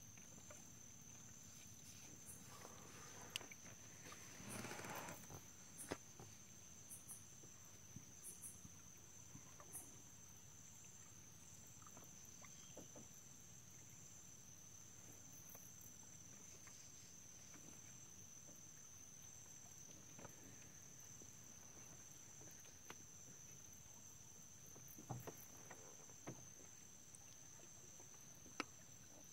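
Near silence over a faint, steady, high-pitched insect drone. A few faint scattered knocks and a brief rustle about four to five seconds in.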